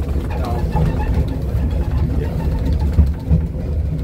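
Steady low rumble of a narrow-gauge railway carriage running along the track, heard from inside the carriage, with a couple of sharp knocks about three seconds in.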